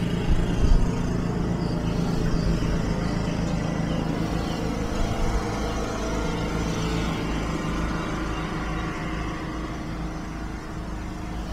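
Steady low mechanical hum that holds level throughout.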